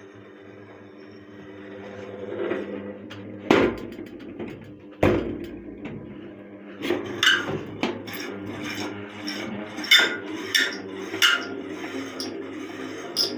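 Ceiling fan humming steadily while something knocks and clatters against it, set up on purpose to make a loud noise. Two sharp knocks come a few seconds in, then a run of irregular clacks and scraping rattles, several a second apart.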